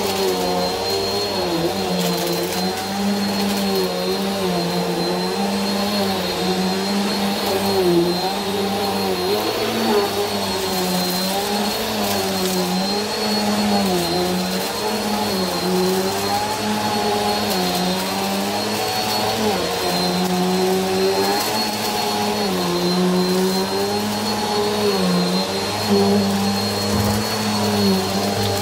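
Upright vacuum cleaner running over carpet: a steady motor whine with a lower hum whose pitch dips and recovers every second or two as the cleaner is pushed back and forth.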